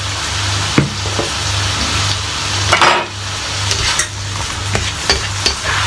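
Bacon and mushrooms sizzling as they fry in a pan. A utensil stirs and clicks against the pan several times, with a short scrape about three seconds in.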